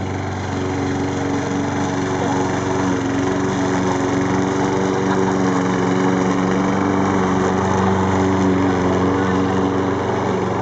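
Self-propelled gas lawn mower's small engine running steadily while the mower drives itself across the grass, growing a little louder as it comes close.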